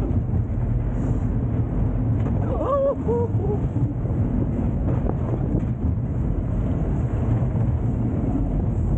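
Wind buffeting the microphone over the steady rumble of a spinning wild-mouse coaster car running along its steel track, heard from inside the moving car. A brief rising-and-falling squeal about three seconds in.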